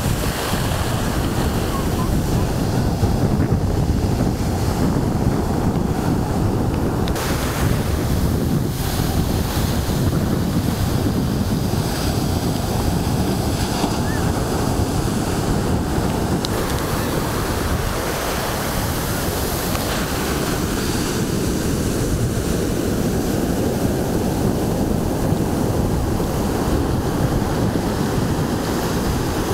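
Ocean surf breaking and whitewater washing up the shore in a steady rush, with wind buffeting the microphone.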